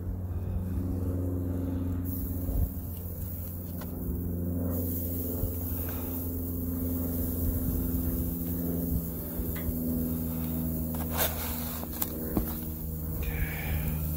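A steady low drone of held tones that shift pitch now and then, with a few sharp clicks of metal tongs against a charcoal grill's grate about eleven and twelve seconds in.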